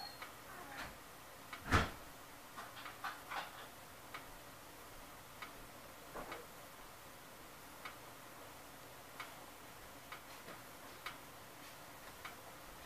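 Faint, irregular ticks and clicks from a stainless saucepan of water heating on a glowing electric coil burner, about one a second, with a louder click near two seconds in and a few quick ones around three seconds.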